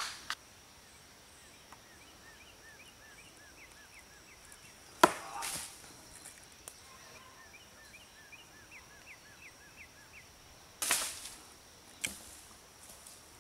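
A sharp knock about five seconds in, the loudest sound, then a rougher scuffing thump and a click near the end. Under them runs a faint steady high insect buzz, and for a while a bird repeats a short chirp several times a second.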